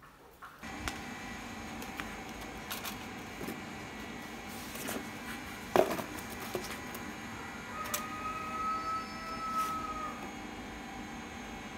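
Handling noise from a wire-mesh cage and a hot glue gun: scattered clicks and knocks over a steady background hum, one knock about halfway through much louder than the rest. A thin steady tone holds for about two seconds near the end.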